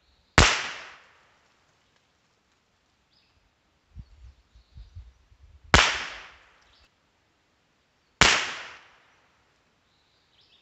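Three shots from a .22 LR rimfire rifle firing CCI standard-velocity ammunition, heard from the target end: the first shot, then one about five seconds later and a third a couple of seconds after that. Each is a sharp crack with a short fading tail.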